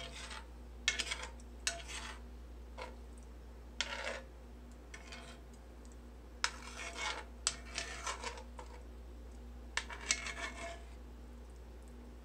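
Metal spoon stirring creamy pasta and scraping against a cast iron skillet, in short bursts of scraping with pauses between.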